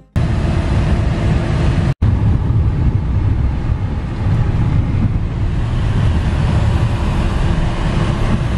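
Steady low road rumble inside a moving van's cabin. A brief cut about two seconds in splits it from a short stretch of surf and wind noise at the start.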